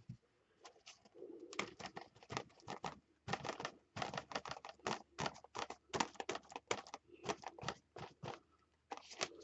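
Rapid, irregular light tapping, several taps a second with a couple of short pauses: a tool dabbing paint onto a paper background.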